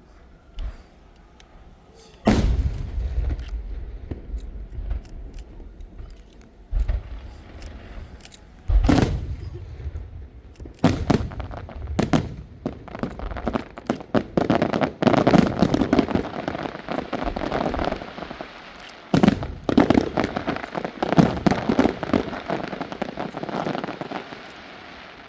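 Aerial fireworks shells bursting with deep booms several seconds apart, then many bursts and dense crackling packed close together from about halfway through.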